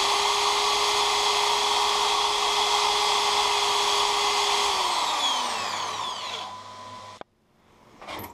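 Corded electric drill running at a steady speed, spinning a thin stainless-steel tube held in a yellow pad to clean its surface. The motor whine falls and dies away about five seconds in. A couple of light metallic clicks follow near the end.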